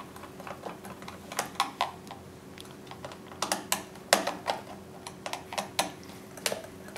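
Screwdriver driving screws into the plastic handle and back cover of an Orpat electric iron: irregular small clicks and taps of the tip in the screw heads and of the plastic housing, in scattered clusters.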